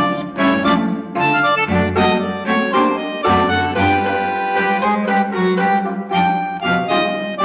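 Instrumental music track from a recording fed by line straight from a TC Electronic Finalizer 96K mastering processor on its Neutral preset, so there is no room sound. It plays at a steady loud level with notes changing in a regular pulse.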